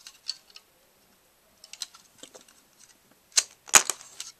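Light plastic clicking of Lego pieces, then two sharp clacks a little over three seconds in, as the rubber-band Lego pistol fires and a brick is knocked off the Lego brick tower.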